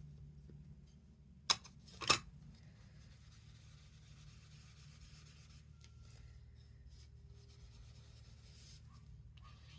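Two sharp clicks about half a second apart, then a blending brush rubbing softly over watercolour cardstock, stopping near the end.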